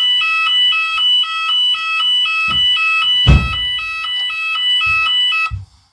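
Fire alarm evacuation tone of a shop's voice-alarm system: two pitches alternating about twice a second, stopping shortly before the end. A few low thumps sound over it, the loudest about three seconds in.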